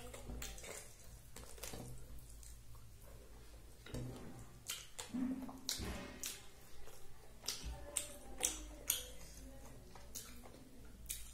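Close-miked eating sounds of a person eating rice and curry by hand: fingers mixing food on a plate and chewing, with many small sharp clicks and smacks. Near the end dal is poured from a small bowl onto the plate.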